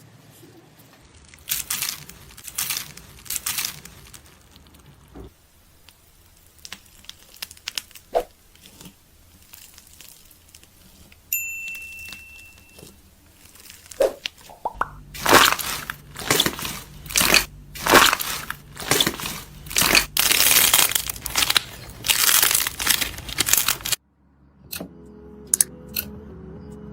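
Slime being squeezed and pressed by hand, giving repeated crackling, crunchy strokes in several short clips, loudest and densest in a long run over the second half. Near the end a faint steady tone sits under a few sharp clicks.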